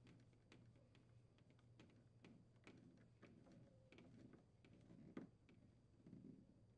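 Very faint, scattered ticks and clicks of a screw being driven by hand into a plastic refrigerator evaporator fan housing, with one slightly louder click about five seconds in.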